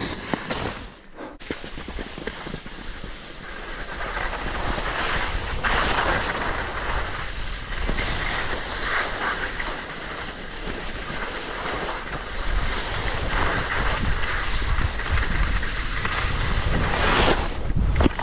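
Skis sliding and carving over soft, sticky spring snow, a steady rushing hiss that swells a few seconds in, with wind buffeting the camera's microphone.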